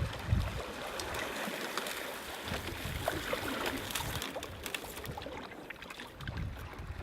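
Lake water lapping and gurgling, with small splashes and drips.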